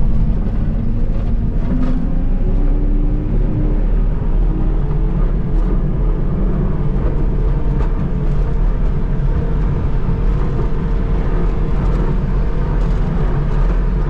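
JCB 260T compact track loader's diesel engine running under throttle, heard from inside the cab. Its pitch rises a little a couple of seconds in, then holds steady.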